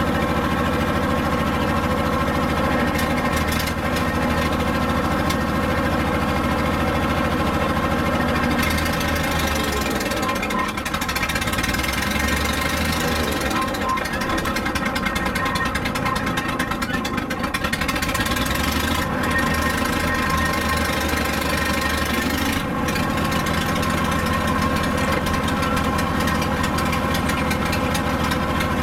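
Straight-piped engine of a Bantam C35 dragline crane running under load while it digs, loud and steady, its note sagging for several seconds midway and picking up again. The engine's plugs and wires have not yet been renewed and its timing is still to be checked.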